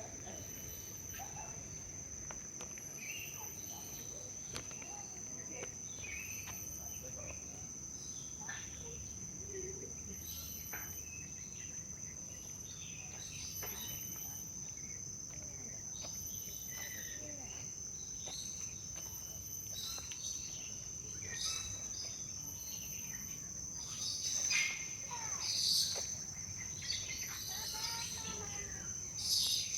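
Steady high-pitched insect drone, like crickets or cicadas, with a fainter pulsing trill above it. Scattered bird chirps and calls come over it, louder and busier near the end.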